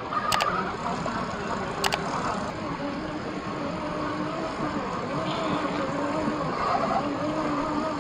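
RC scale crawler truck's electric motor and gears whining, the pitch shifting a little with throttle, over the rush of a shallow rocky stream. Two sharp clicks in the first two seconds.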